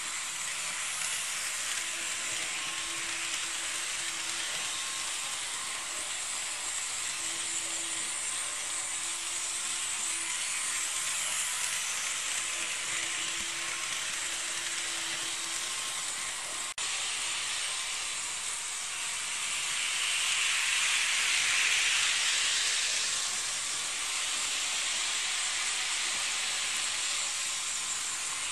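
Model railway trains running on the track, a steady rushing hiss of small motors and wheels with a faint hum in the first half. The hiss grows louder about twenty seconds in, then eases, and rises again near the end.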